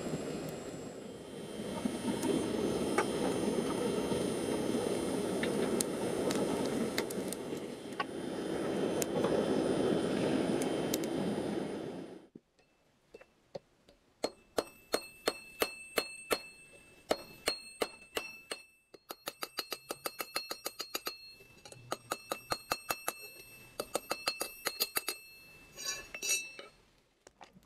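Electric blower forcing air into the forge fire: a steady rushing noise that swells and eases, cutting off suddenly about twelve seconds in. Then a hammer striking a red-hot steel bar on a round steel-block anvil, quick runs of ringing blows with short pauses between them.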